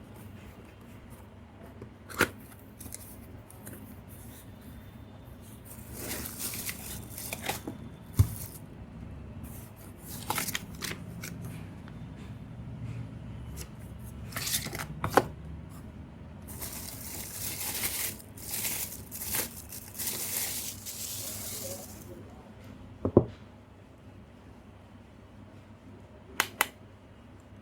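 Hands taking apart a plastic hair dryer housing: scattered sharp clicks and knocks with stretches of scraping and rustling as the plastic shell is worked open.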